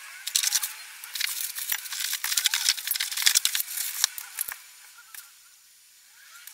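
Crinkling and tearing of thin plastic packaging, with small clicks of hardware being handled, busy for about four and a half seconds and then dying away.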